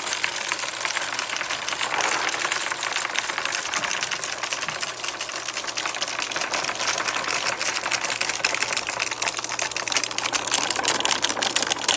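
Marbles rolling and clattering down a marble run, a dense, continuous rapid clicking and rattling. A faint steady low hum runs underneath from about a second in.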